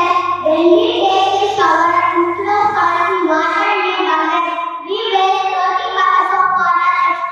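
Schoolchildren singing a song together into microphones, in long held notes.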